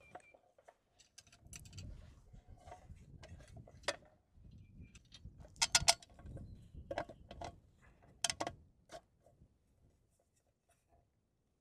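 Metal outlet box being handled and pushed onto a steel pedestal bracket: scattered clicks and knocks with low handling rustle, the loudest clatter about six seconds in and another just after eight seconds.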